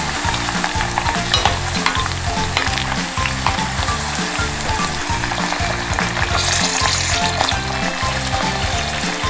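Sliced garlic and dried pepperoncino frying in olive oil, a steady sizzle with small crackles. Shrimp go into the hot oil, and the sizzle turns brighter about six seconds in.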